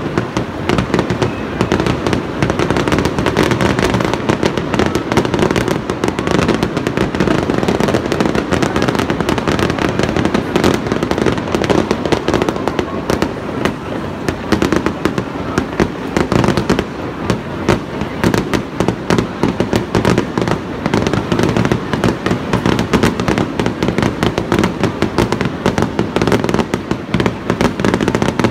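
Aerial fireworks shells bursting in a continuous rapid barrage, many sharp bangs overlapping with no pause between them.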